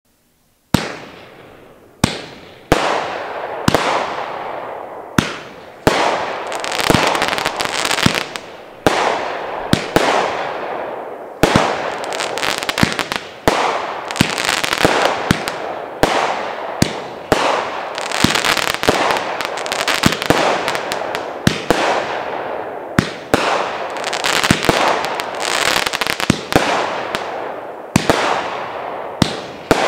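Great Grizzly 'Utopia' 350-gram, 16-shot firework cake firing. Starting just under a second in, there is a sharp launch report every one to two seconds, each followed by the burst and a fading hiss of glittering stars.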